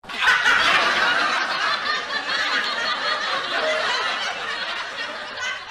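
Laughter sound effect: snickering, chuckling laughter that starts abruptly and is cut off sharply after about five and a half seconds.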